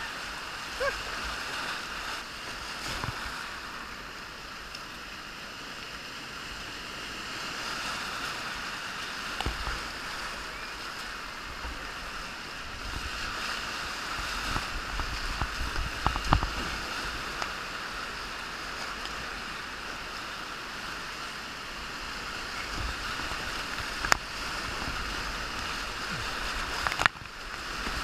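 Whitewater rapid rushing past a kayak in a steady roar of moving water, with a few sharp splashes and knocks as waves and the paddle strike the boat. The loudest of these comes a little past halfway, and another near the end.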